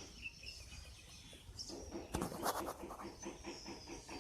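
Faint birds chirping in short high calls, with a few sharp clicks a little past halfway and a faint low pulsing behind.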